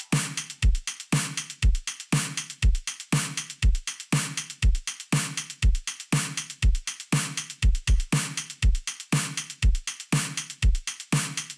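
Background music: an electronic drum-machine beat, a kick drum about twice a second with hi-hat strikes between.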